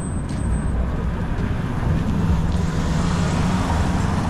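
City traffic: a steady low rumble of vehicles, with an engine hum swelling as something passes about halfway through.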